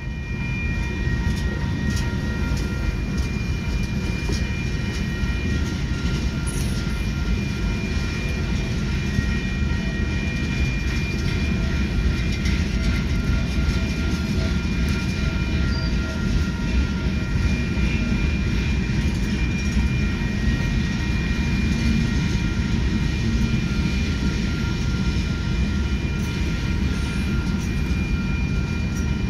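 Loaded oil-train tank cars rolling steadily past a grade crossing: a continuous rumble of steel wheels on the rails, with a faint steady high whine over it, heard through the windshield from inside a car.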